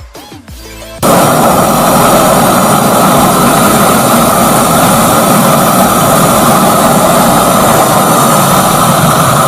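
Gas torch flame burning with a loud, steady rushing noise that starts abruptly about a second in, heating a seized nut to free it. A second of background music comes before it.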